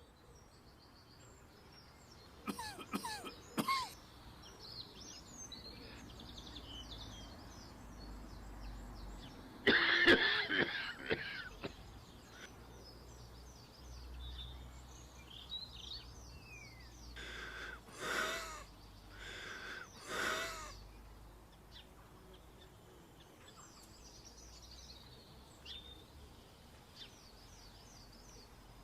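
A person coughing in short bouts while small birds chirp and twitter throughout. A few quick coughs come about three seconds in, a louder, longer burst around ten seconds, and three more coughs a second or so apart later on.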